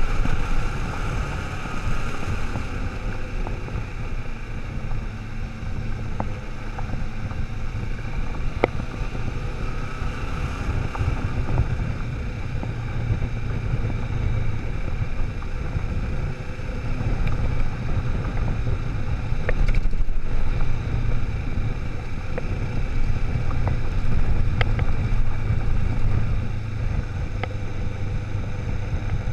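Kawasaki motorcycle riding at speed on a gravel road: a steady low engine and tyre rumble under heavy wind noise on the microphone, with a few sharp clicks.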